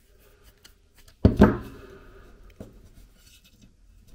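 A screwdriver working the last cover screw out of a small aluminium attenuator case, with faint clicks and scrapes. About a second in comes a single loud knock that rings on briefly, and a sharper click follows a little later.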